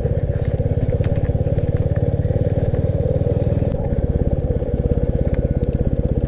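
Motorcycle engine running at a steady, fast-pulsing beat while coming down a steep slope in second gear, held back by engine braking instead of the brakes. The note shifts slightly nearly four seconds in, and a couple of faint clicks sound about five seconds in.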